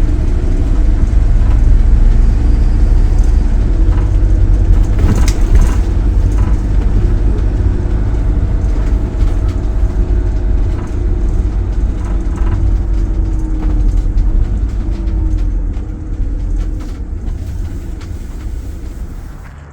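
Motorhome driving along a road: steady low engine and road rumble with a faint wavering hum, fading out over the last few seconds.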